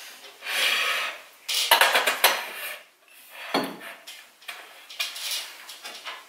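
Ceramic and metal kitchenware clinking and scraping on a cupboard shelf as a teapot is set in place, in several separate bursts with a sharper knock partway through.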